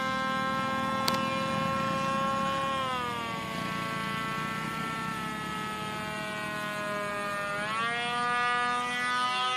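Homemade WD model plane's motor and pusher propeller running in flight: a steady whine that drops in pitch about three seconds in, then climbs again near the end, with one short click about a second in.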